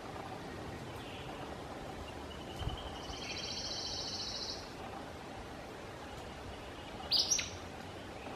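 Acadian Flycatcher giving one short, sharp, explosive call near the end. Earlier, a high buzzy trill lasts about a second and a half, over a steady outdoor hiss.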